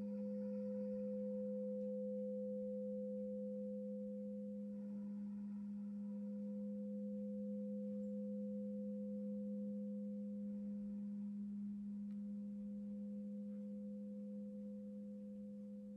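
Crystal singing bowl sounding a steady low tone with a higher overtone above it, slowly fading toward the end.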